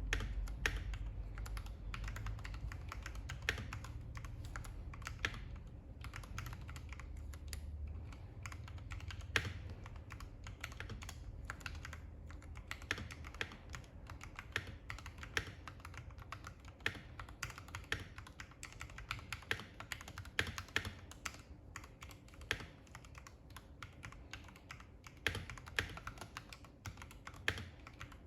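Typing on a custom mechanical keyboard with lubed Gateron Ink Yellow linear switches, Drop MT3 Dasher keycaps and an aluminium plate in a Tofu96 case: a steady, irregular run of key strikes.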